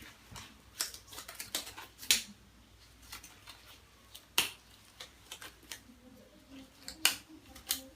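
Small objects handled on a hard surface: irregular sharp clicks and taps, the loudest about two, four and seven seconds in.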